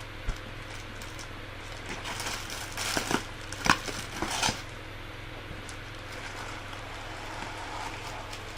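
Packaging being handled: a single knock just after the start, then a cluster of rustling and clicking about two to four and a half seconds in, over a faint steady low hum.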